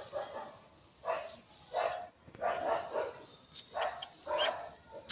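Repeated short animal calls or barks, about seven in a row at roughly one a second.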